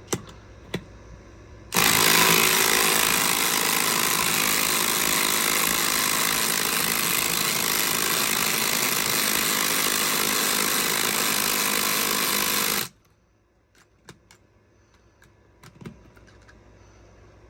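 A 12-volt cordless impact driver hammering under load without a break for about eleven seconds, starting about two seconds in and stopping suddenly.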